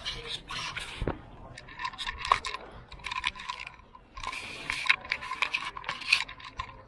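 Small hard objects clinking and rattling as they are handled, in quick irregular clicks.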